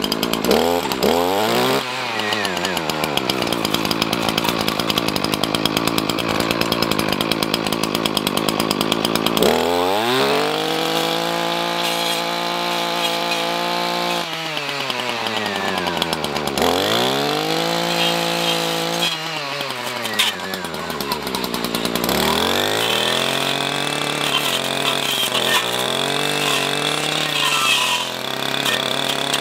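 Two-stroke Echo brush cutter fitted with a chainsaw-tooth brush blade, its engine revved up to high speed and dropped back toward idle several times as the blade cuts into small brush and branches.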